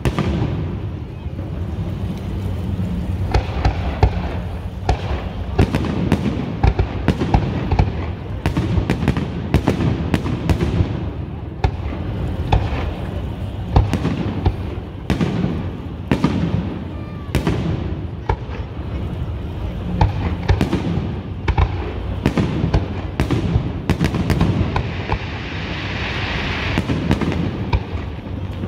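Professional aerial fireworks display: shells bursting overhead one after another, dozens of sharp bangs in quick, irregular succession.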